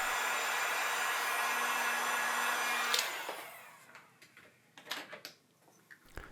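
Heat gun blowing steadily with a faint hum, switched off about three seconds in and running down to quiet within a second. A few faint clicks follow near the end.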